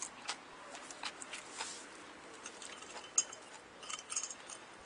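Close-up eating sounds: chewing and mouth clicks from someone eating fried chicken (karaage) from a boxed lunch, with scattered light clicks and taps.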